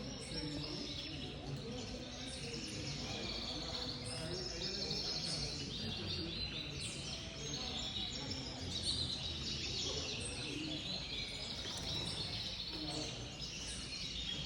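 Many caged canaries chirping and trilling at once, without a break, over a low murmur of voices.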